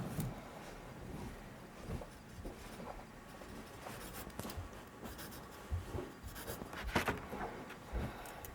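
A pen scratching quietly on paper as something is signed, with a few light knocks from handling the paper near the end.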